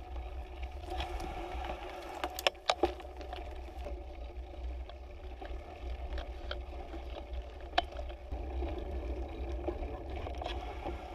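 Riding noise picked up by a handlebar-mounted camera on a bicycle: a steady low wind-and-road rumble with tyres humming over dirt and pavement, broken by a few sharp knocks and rattles as the bike jolts over bumps.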